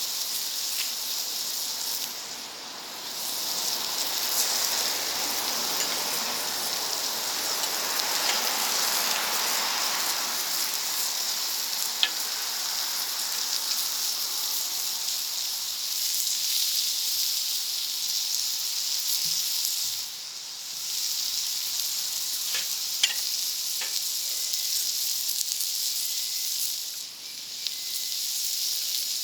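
Food sizzling on a wood-fired plancha: a steady frying hiss that briefly drops three times, with a few sharp pops.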